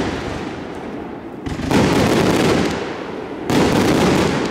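Funke Fermata 100A firework cake firing: shells burst about every two seconds, each starting suddenly and going on as a dense crackle for a second or two.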